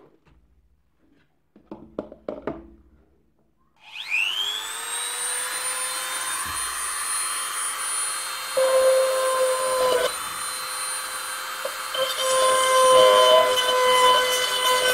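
A few handling knocks, then about four seconds in a small corded rotary drill starts, its whine rising and settling to a steady pitch. It then runs under load as it bores a hole through a plastic enclosure box, louder in stretches.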